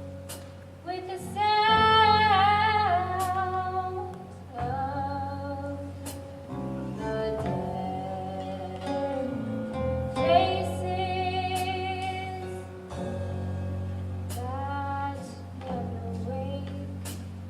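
A woman singing a slow melody in phrases of a few seconds, holding high notes with vibrato, over a steady instrumental accompaniment.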